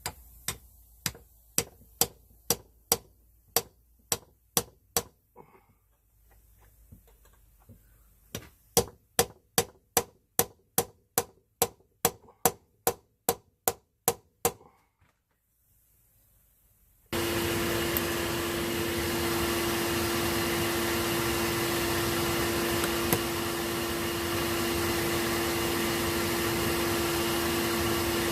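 Hand hammer striking hot rebar on an anvil in two runs of steady blows, about two a second, with a short pause between them. After a brief quiet, the barbecue forge's air blower comes on suddenly and runs loud and steady with a constant hum.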